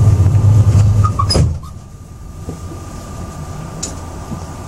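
Moscow monorail train setting off from a station: a loud low hum for about the first second and a half, ending with a sharp knock. The train then runs on with a quieter steady noise and a faint, thin high whine.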